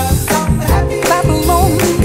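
Background music with a steady beat of about two a second over a bass line, with a wavering melody on top.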